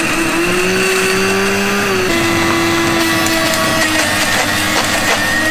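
Electric countertop blender running steadily with chopped garlic and salt in its jar, grinding it toward a paste; the motor's pitch steps down slightly about two seconds in.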